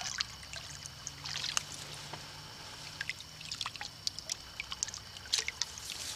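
A hand dipping and scooping in shallow, muddy ditch water: irregular small splashes, drips and trickles.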